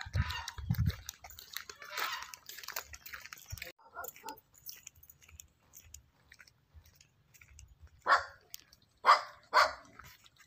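A dog barking three short times near the end, after a couple of low bumps on the microphone at the start.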